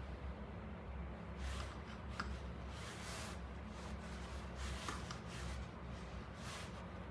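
Soft, brief rustles and light scrapes, a second or so apart, of hands and a spoon picking up chopped vegetables from a plate and dropping them onto a bowl of soup, over a low steady hum.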